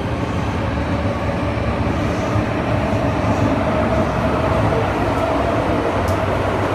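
Interior running noise of an MTR M-Train metro car: a steady rumble of the train on the track with a steady whine.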